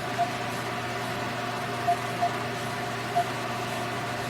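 Short electronic key-press beeps, singly or in pairs, from a phone or call-recorder keypad as its clock is set, over a steady electrical hum.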